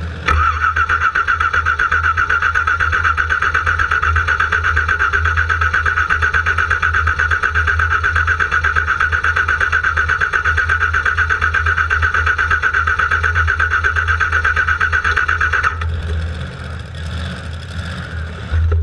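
Car engine being cranked by its starter motor without catching: a long, steady, rapidly pulsing whine that never picks up into running, the sign of a no-start. It cuts off suddenly after about fifteen seconds.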